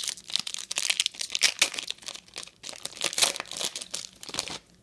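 A trading-card pack's wrapper being torn open and crinkled in the hands: dense, irregular crackling that stops abruptly near the end.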